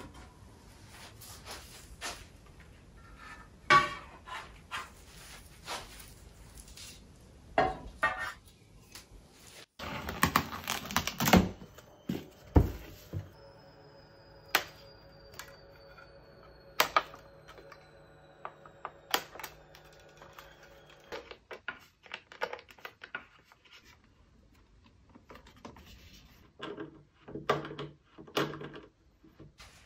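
Knocks, clunks and clicks of wooden flat-pack furniture parts being handled and assembled, with a loud clatter about ten seconds in. Near the end, a hand screwdriver drives screws into a pine box.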